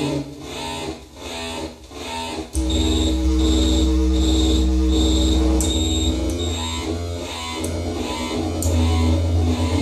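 MFOS Weird Sound Generator analog synthesizer run through a delay pedal: a few broken, stuttering pulses, then about two and a half seconds in a loud buzzing drone with a deep bass tone and high beeps repeating about twice a second.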